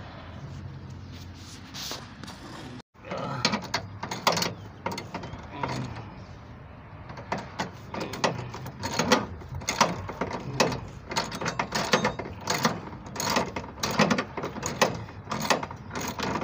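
Hand ratchet and socket tightening the mounting bolts of a pickup's side step bar: the ratchet's pawl clicks in quick runs of strokes, starting about three seconds in.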